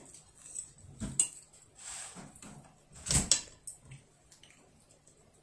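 Tableware clinking and knocking on a table: a few sharp knocks about a second in and a louder cluster about three seconds in, with a short scrape between them.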